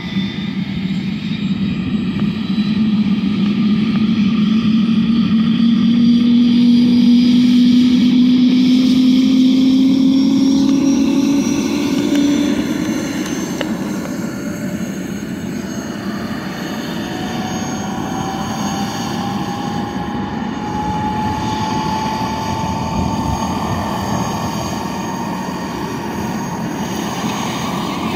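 Eurocopter AS350 B3 helicopter running on the ground, its turbine and rotor droning with a whine that slowly rises in pitch as it spools up before lift-off.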